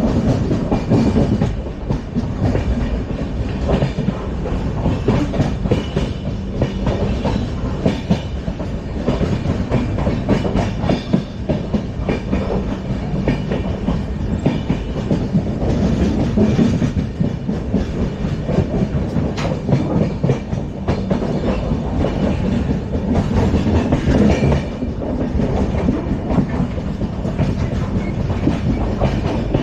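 LHB passenger coaches running at speed over the rails: continuous loud wheel-and-track noise with rapid clicking and rattling.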